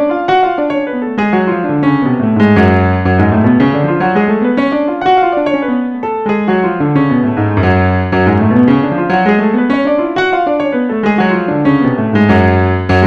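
Electronic keyboard in a piano voice playing fast scales, climbing and falling in even runs, each up-and-down run taking about five seconds.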